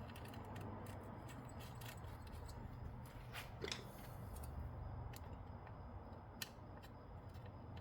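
Small metal parts and hand tools being handled at a workbench: scattered faint clicks and light metallic ticks, a couple of sharper clicks around the middle.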